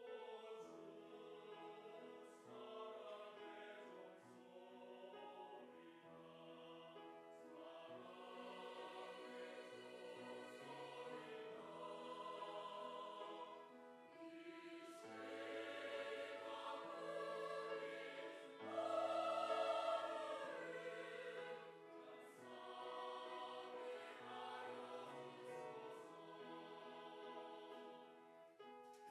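Church choir singing a hymn anthem in sustained, held phrases over an accompaniment, swelling to its loudest about two-thirds of the way through.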